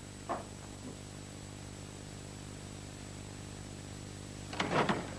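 Steady electrical hum and hiss from an old videotape soundtrack. There is a faint brief knock just after the start and a louder short sound near the end.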